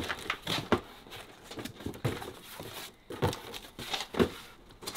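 Cardboard box being opened by hand: the flaps rustle and knock, with a few short, soft thumps at irregular intervals.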